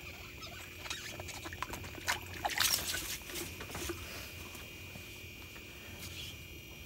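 Scattered small clicks and rustles, busiest about two to three seconds in, from hands handling a just-landed crappie and ice-fishing rod line.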